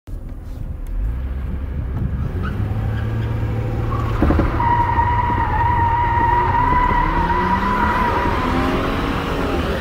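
Holden VY Commodore engine revving hard while the car skids, a steady high-pitched tyre squeal setting in about halfway through. Near the end the engine's pitch rises as it revs higher.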